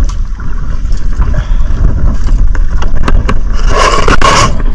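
Wind buffeting the microphone in a steady low rumble, with a few sharp clicks about three seconds in. Near the end there is a loud rustling scrape as something rubs over the camera.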